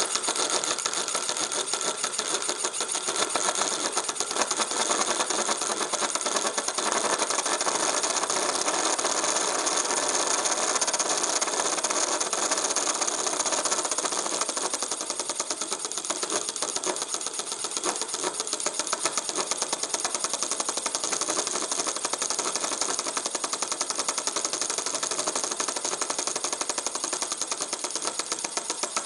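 Homemade series-wound electric motor of nails, magnet wire and brass sheet spinning at speed in a glass-tube bearing. It gives a steady, fast buzzing rattle from the very high friction in the bearing, a little quieter in the second half.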